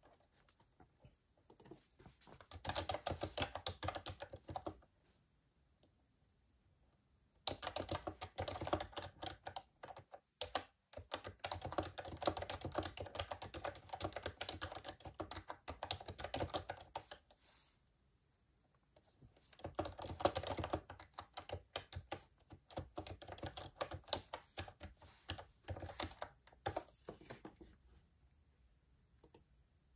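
Typing on a computer keyboard: rapid key clicks in three spells separated by short pauses. A brief run comes a few seconds in, then a long run of about ten seconds, then another of about seven seconds.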